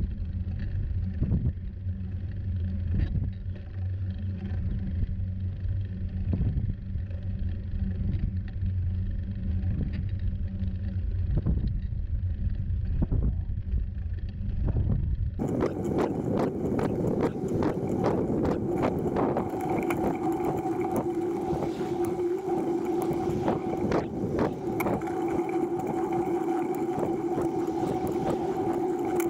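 TerraTrike recumbent trike rolling along pavement, with wind rumble on the low-mounted microphone and tyre noise from the road surface. About halfway through the sound changes abruptly to a brighter rattle of many sharp clicks over a steady whine.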